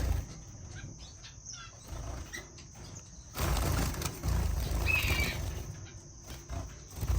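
Small caged finches fluttering their wings, with a few short, high chirps.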